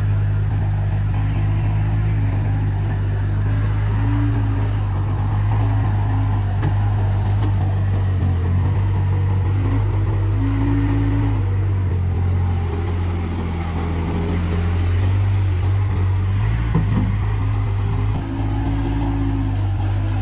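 Bobcat S130 skid steer loader's diesel engine running steadily while working, a constant low hum with higher tones that come and go every few seconds.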